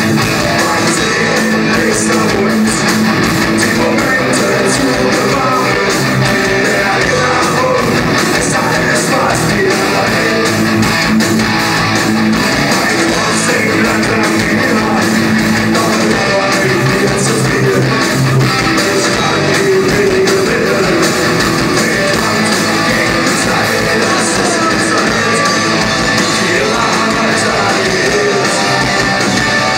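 Live rock band playing loud and steady: electric guitars and drums, with a vocalist singing over them.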